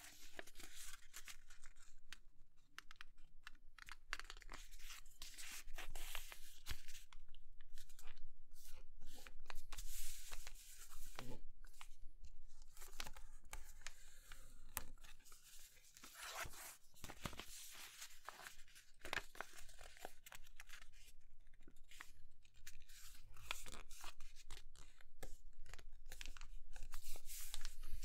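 A sheet of paper rustling and crinkling as it is folded by hand and its creases pressed flat, in irregular swishes and scrapes with small clicks.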